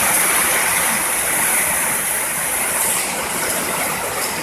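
Heavy rain pouring down: a dense, steady rushing hiss that eases slightly toward the end.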